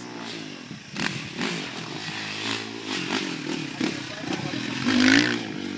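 Motocross dirt bike's engine revving up and down as it rides the dirt track, heard from up the hillside, mixed with spectators' voices; a loud voice about five seconds in.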